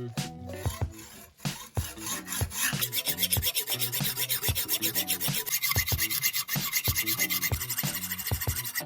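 Hand filing: a run of quick, even rasping strokes, about five or six a second, starting about three seconds in after a few scattered scrapes.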